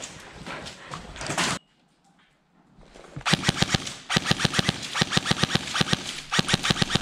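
Airsoft guns firing on full auto in rapid bursts of evenly spaced shots, starting about three seconds in after a second of near silence.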